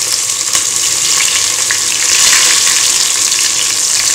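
Sliced onions sizzling in hot oil with whole spices in an aluminium pressure cooker: a loud, steady hiss with small crackles. It cuts off suddenly near the end.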